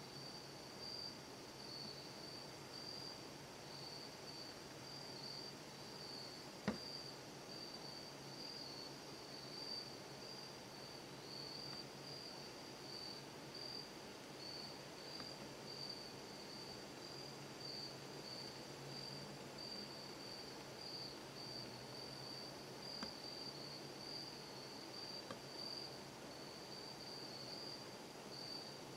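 Faint, steady chorus of insects, a high pulsing trill that goes on without a break. A single sharp click sounds about seven seconds in, with two softer ticks later.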